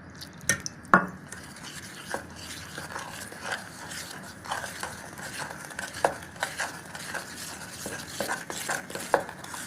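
Stirring thick chocolate cake batter in a bowl as milk is worked in, with irregular light clicks of the utensil against the bowl.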